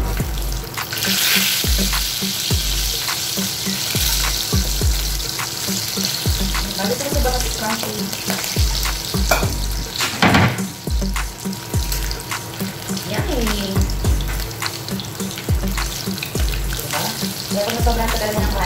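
Milkfish pieces sizzling steadily in hot oil in a frying pan, with short clicks and scrapes as kitchen tongs turn the fish and knock against the pan.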